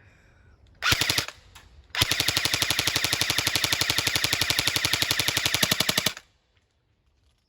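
Lancer Tactical M4 airsoft electric gun firing on full auto: a short burst about a second in, then a sustained burst of about four seconds with rapid, even shot-by-shot cycling.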